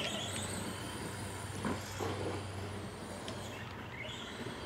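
Electric RC car driven at full throttle, its motor whining with tyre noise over a steady low hum; the whine rises again near the end.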